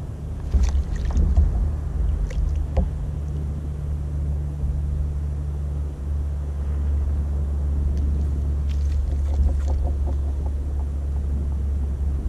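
Steady low rumble of wind and water against a bow-mounted camera on a fishing kayak at sea, with a few brief light clicks and knocks about a second in, at two to three seconds, and again near nine to ten seconds.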